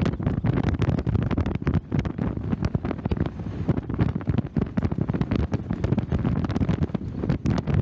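Wind buffeting the microphone in uneven gusts on the open deck of a moving ferry, a rough rumble that rises and falls.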